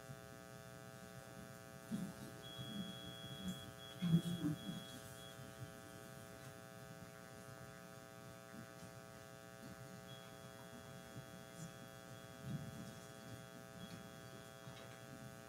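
Steady electrical hum of several even tones, with faint muffled voices now and then.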